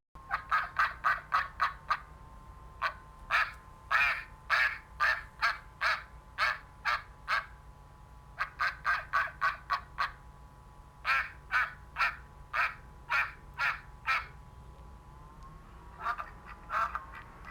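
Duck quacking in rapid runs, about four quacks a second, with short pauses between the runs.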